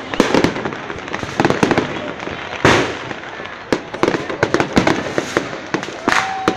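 Aerial fireworks exploding: a quick, irregular run of bangs and crackles, with one loud boom about two and a half seconds in.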